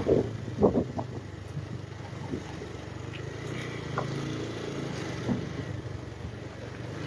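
Motorcycle engine running at low road speed, heard from on the bike. There are a few short knocks in the first second, and the engine note rises and falls briefly about four seconds in.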